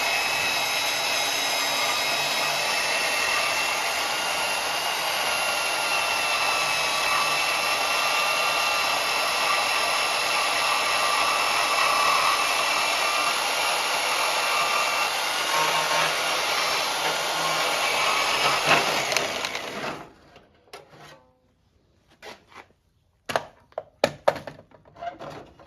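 Power tool cutting through the steel frame rail of a 1955 Dodge truck chassis, a steady whine that stops about 20 seconds in. A few sharp knocks and clatter follow.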